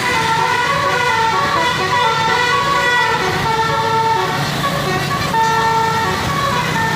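Basuri musical bus horn playing a tune: a run of loud held horn notes that change pitch every half second or so.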